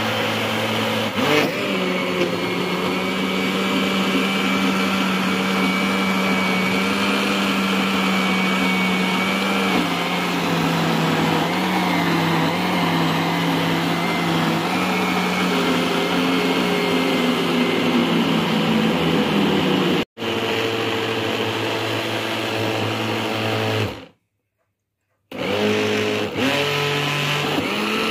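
Electric mixer-grinder motor running steadily as it churns cream in its jar, with lumps of butter forming. Its note dips slightly about a second in and again about ten seconds in. The sound cuts out very briefly about twenty seconds in, stops again for about a second near the end, then starts again.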